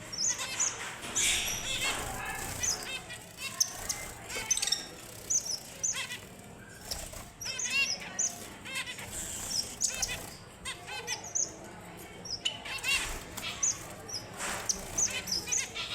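Red avadavats (strawberry finches) chirping: a busy run of many short, high calls, broken by a few brief rustling stretches.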